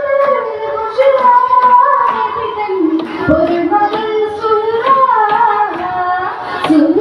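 Young female voice singing a Mappila song (mappilappattu) solo into a microphone: long held notes with ornamented glides and bends between pitches.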